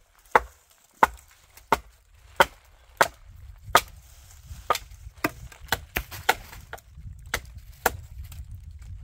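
Axe chopping into a tree branch: a run of sharp wooden chops, one to two a second, the heaviest blows in the first few seconds and lighter, quicker ones after.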